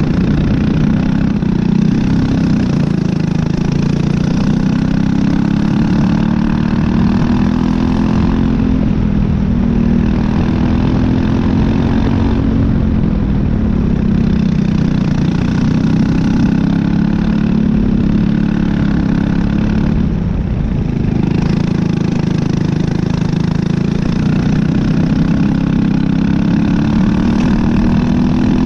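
Briggs & Stratton LO206 four-stroke single-cylinder kart engine running hard, heard close up from on board. The revs climb steadily and drop back sharply about three times.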